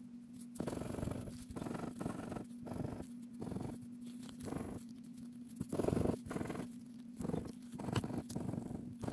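Coating being scratched off a paper scratch-off lottery ticket with a plastic scratcher, in short rasping strokes about once a second, the loudest one about six seconds in.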